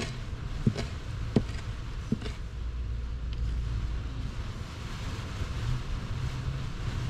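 Small knife chopping dulse seaweed on a paper plate: a few sharp knocks in the first two and a half seconds, over a steady low rumble.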